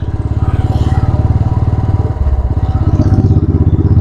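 Royal Enfield Classic 350's single-cylinder engine running under way with its steady exhaust thump; the note shifts about halfway through and grows louder near the end.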